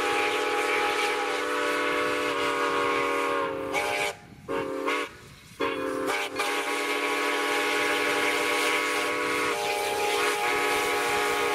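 Steam whistle of Santa Fe #3415, a 1919 Baldwin 4-6-2 Pacific locomotive: a long blast that ends about four seconds in, a short blast, then another long blast, sounding for the grade crossing.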